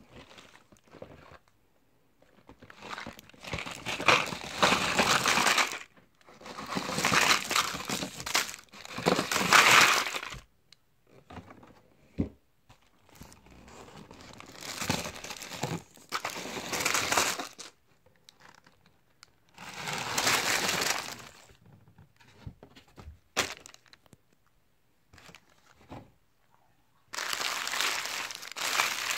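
Foil and plastic candy wrappers and fun-size packets crinkling and rustling as wrapped candy is tipped out of boxes onto a pile and stirred by hand. The rustling comes in about five bursts of a few seconds each, with quiet gaps between them.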